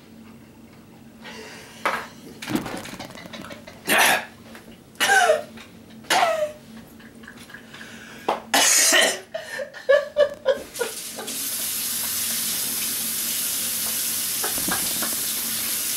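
Several short, loud vocal cries from someone burning from a whole jalapeno, then a kitchen faucet turned on and running steadily into the sink from about two-thirds of the way in.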